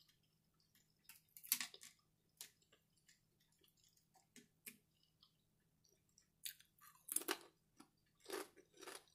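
Crispy bacon crunching and being chewed, in scattered sharp crackles, the loudest about a second and a half in, with a denser run of chewing near the end.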